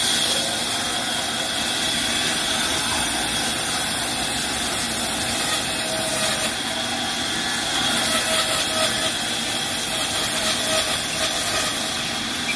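Large sawmill band saw running steadily while a thick wooden plank is fed through the blade.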